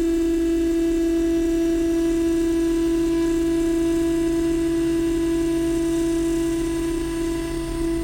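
CNC mill face-milling aluminum with a PCD insert: a steady, unchanging pitched hum with overtones, dipping slightly near the end.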